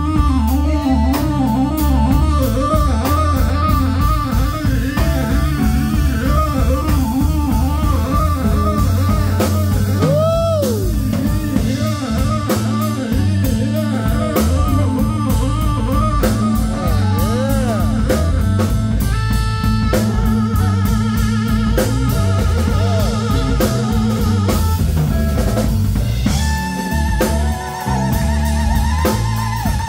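Live blues band playing an instrumental passage: electric guitar with bent, wavering notes over a drum kit and keyboards, moving to long held notes in the last third.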